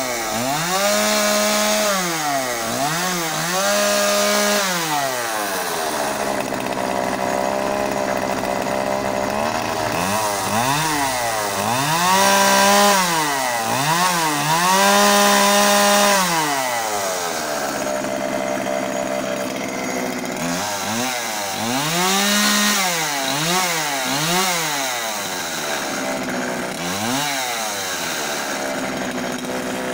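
Homelite CSP 3314 two-stroke chainsaw engine idling and being revved repeatedly. Each blip climbs quickly, holds for a second or two and drops back to idle, in three clusters of several revs each, with steady idle stretches between them.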